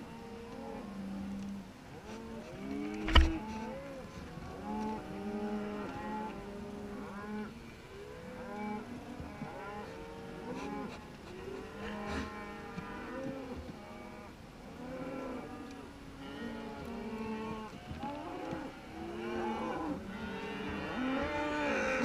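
A herd of beef cows and calves mooing and bawling, many calls rising and falling and overlapping one another without a break. A single sharp knock about three seconds in is the loudest sound.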